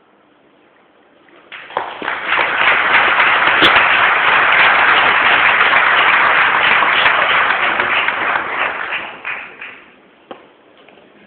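Audience applauding. It starts about a second and a half in, holds steady, then dies away with a few last claps near the end.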